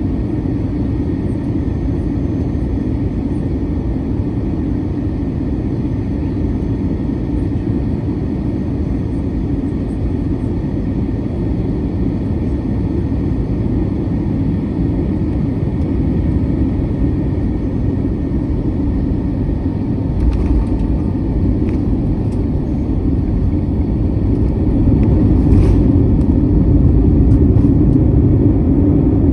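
Cabin noise inside an Airbus A321-200 around landing: a steady low rumble of engines and airflow. After about twenty seconds there are a few short knocks and rattles, and the rumble grows a little louder about twenty-five seconds in.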